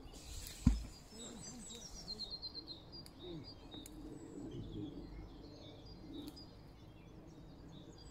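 Birds chirping and singing over faint outdoor background noise, with one sharp thump less than a second in.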